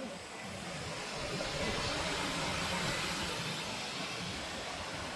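Steady rushing roar of a waterfall. It swells a little about two seconds in, then eases back.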